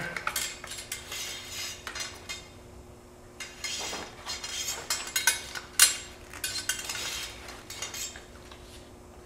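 A cleaning rod with a cloth swab being pushed and pulled through a Charles Daly semi-automatic shotgun's barrel, scraping and clinking in irregular strokes, with one sharper knock a little past the middle.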